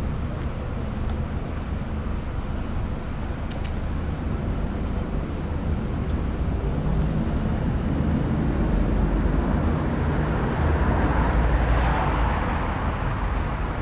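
Street ambience of road traffic noise and a low rumble, with a passing vehicle that grows louder from about eight seconds in, peaks and fades near the end.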